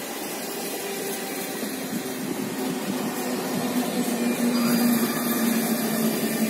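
Double-deck electric commuter train passing at speed: a steady rush of wheels on rail, with a low hum that grows louder over the last couple of seconds.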